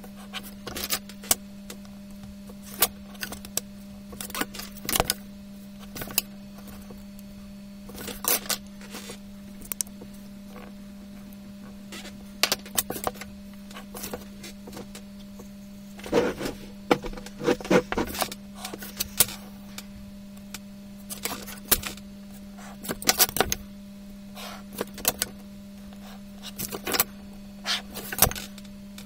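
Drawing instruments (a wooden ruler, a plastic set square and a marker) being set down, shifted and tapped on a drawing board, giving irregular sharp knocks and clicks, sometimes several in quick succession, over a steady low hum.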